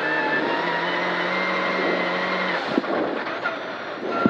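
Saab 9-3 Turbo rally car's engine, heard from inside the cabin, held at steady high revs in fourth gear on a straight. About two and a half seconds in the driver lifts off, with a couple of knocks from the car, and the engine then pulls again from lower revs, slowly rising.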